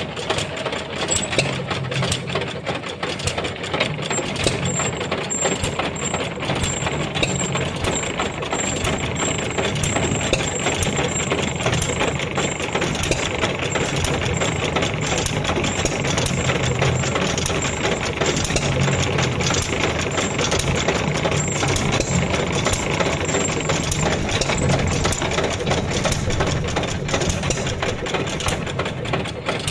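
3/4 HP Bluffton hit-and-miss stationary engine running and driving an antique wooden washing machine, a steady, rapid mechanical clatter that carries on without a break.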